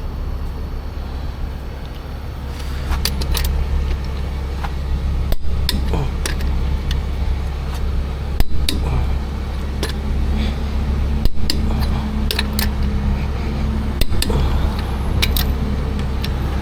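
Click-type torque wrench clicking as the wheel's lug nuts are torqued to 110, a sharp metallic click every one to three seconds over a steady low hum.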